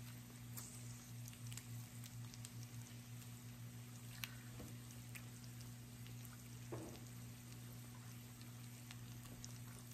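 Strips of pork belly sizzling on the plate of an electric raclette grill, with many small scattered crackles and pops from the fat over a steady low hum.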